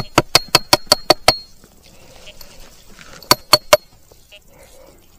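Quick run of sharp metallic taps, about five a second with a high ringing note, then three more taps a couple of seconds later.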